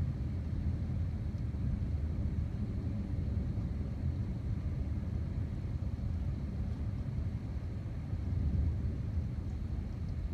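Continuous low rumble of distant thunder from a storm with near-constant lightning, like a freight train going by. It is steady and swells a little about eight seconds in.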